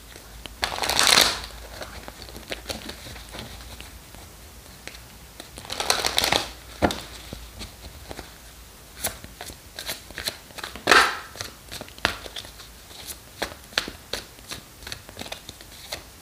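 A deck of Oracle Belline cards being shuffled by hand: louder bursts of sliding, riffling card noise about a second in, around six seconds and around eleven seconds, with light card clicks and taps between them.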